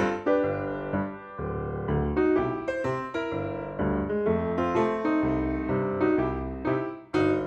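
Background piano music: struck keyboard notes in a steady stream of phrases.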